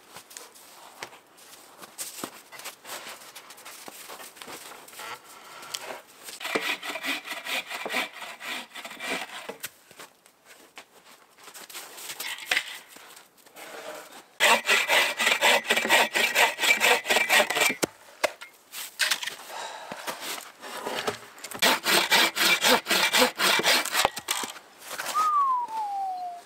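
Hand saw bucking a log into firewood: three bouts of quick, even back-and-forth strokes with short pauses between. A brief falling whine near the end.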